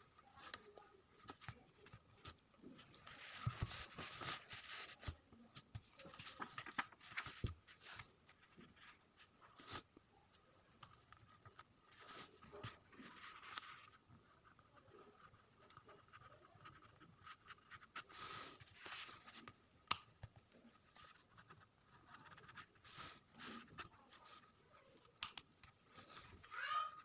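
Unboxing a pen: several spells of rustling and scratching, each a second or two long, as the packaging is opened and the pen handled, with scattered small clicks; the loudest is a sharp click about twenty seconds in.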